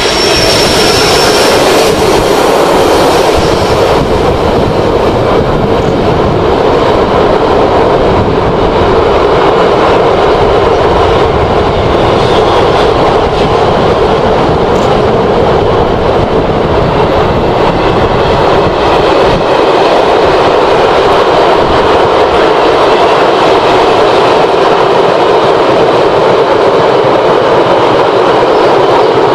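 Electric-hauled freight train of car-carrier wagons rolling steadily across a stone viaduct, a continuous rail rumble and rattle of wheels and wagons. A brief high squeal sounds in the first second or two.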